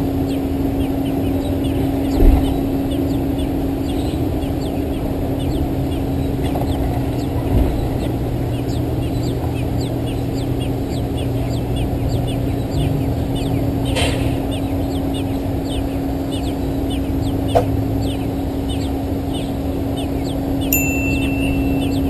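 Steady low hum and rumble with many short, high bird chirps repeating a few times a second over it; a short steady tone sounds near the end.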